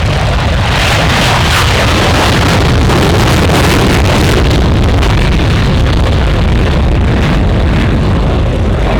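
Loud, rushing engine-and-propeller noise of a light airplane in flight, mixed with wind buffeting the microphone, swelling about a second in and easing off after about four seconds.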